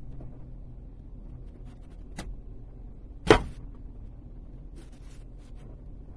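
Knife cutting an apple in half on a wooden chopping board: a light click, then one loud knock a little over three seconds in as the blade goes through the apple onto the board, followed by a few faint taps.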